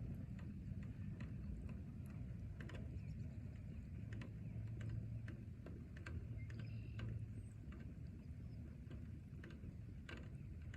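Forest rain ambience: scattered drops ticking irregularly over a low, steady rumble, with a faint bird chirp or two.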